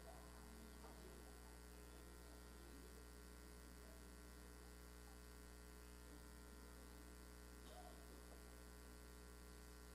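Near silence with a steady low electrical hum (mains hum).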